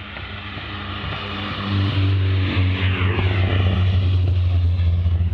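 Rally car engine at full power as the car approaches and passes close by, growing much louder about two seconds in. Its pitch rises and falls as it goes by.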